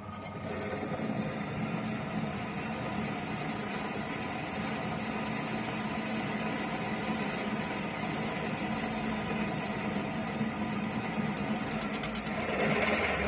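Optimum B17 Pro bench drill press running steadily, its 10 mm twist drill cutting through a metal workpiece under medium feed pressure. Near the end the sound swells louder briefly as the bit comes out the far side.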